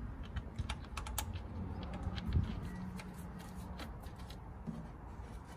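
Light, irregular clicks and taps of hands handling a plastic coolant expansion tank and its fittings as it is fitted, with a soft knock a little before halfway.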